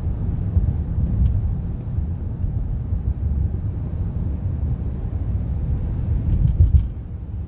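Car driving on a highway: a steady low rumble of engine and tyre noise.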